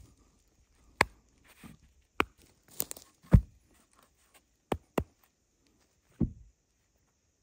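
A series of sharp cracks and knocks from sticks and branches being handled, about seven at uneven gaps, the loudest a heavier thud near the middle.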